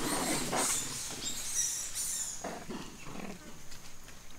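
Long-tailed macaque sounds: crackling, chewing-like noise in the first second as papaya is eaten, then a short run of rough low calls about two and a half seconds in.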